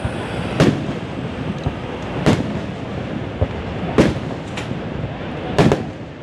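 Aerial fireworks shells bursting: four sharp bangs about every second and a half to two seconds, with a fainter one between the last two, over steady background noise.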